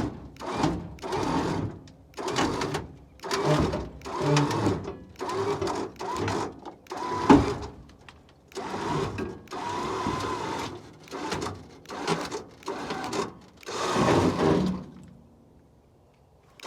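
Winch pulling the truck's deck onto the trailer in a series of short strokes, roughly one a second, a repetitive mechanical working sound that stops near the end.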